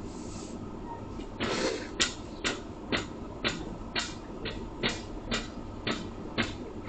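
A regular series of sharp knocks, about two a second, starting about a second and a half in, over a steady low hum.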